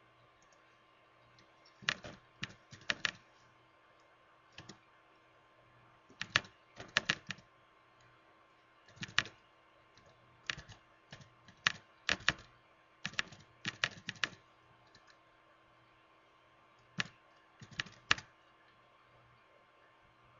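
Keystrokes on a computer keyboard, typed in irregular bursts of quick clicks with short pauses between them, over a faint steady hum.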